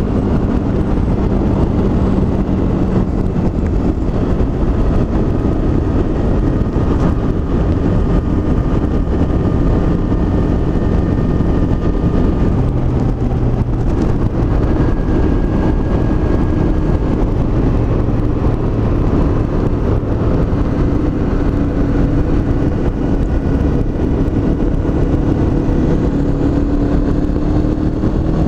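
Honda CB500X's 471 cc parallel-twin engine running at a steady cruise under heavy wind rush. The engine note shifts a few times and rises slowly near the end as the bike gathers speed.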